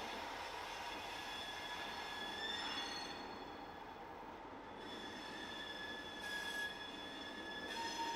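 Steel wheels of slowly rolling freight cars squealing against the rail: a steady high-pitched squeal that shifts pitch and strength a few times, over a low rolling rumble.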